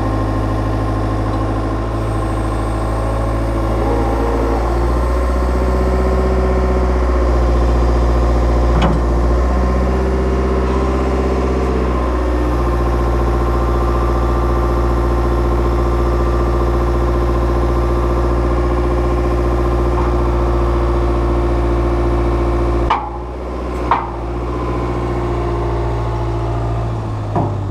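Skid steer loader's engine running steadily as the grapple attachment is worked, its note dipping and shifting for several seconds early on. Near the end the engine note drops and there are three sharp clanks.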